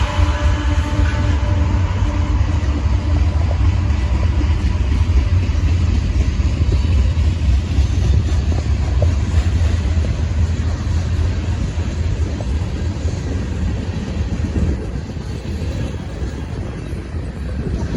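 CSX freight train rolling past with a steady, loud, deep rumble of wheels on rails. The locomotive's horn chord trails off within the first few seconds.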